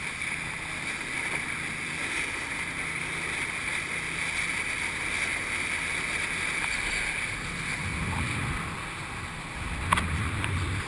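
Outboard motorboat running at speed: the engine and the rush of its wake and spray make one steady noise. A couple of sharp knocks sound near the end.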